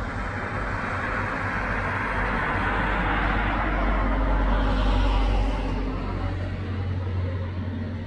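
A road vehicle passing by: tyre and engine noise with a low rumble that builds to its loudest about five seconds in, then fades away.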